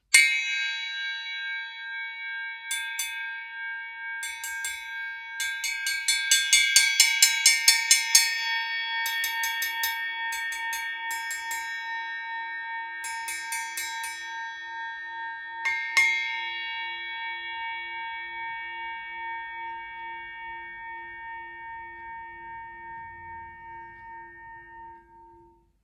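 9.5-inch Zildjian Zil-Bel sound-effects bell being struck and left to ring: a strike at the start, a few scattered strikes, a quick run of strikes a few seconds in, then one more loud strike about sixteen seconds in. After that the bright, bell-like ring dies away slowly with a wavering pulse, fading out near the end.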